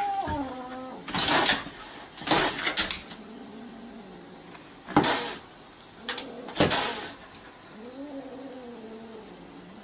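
Kitten hissing and spitting in four sharp bursts at a dog through a car window, with a low wavering animal call at the start and again near the end.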